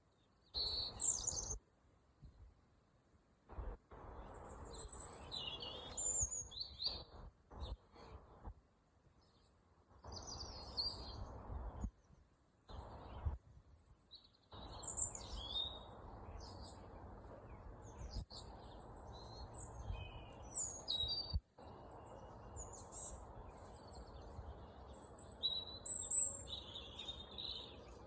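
Wild birds chirping and calling in short, scattered phrases from several directions, over a low background hiss that drops out abruptly now and then.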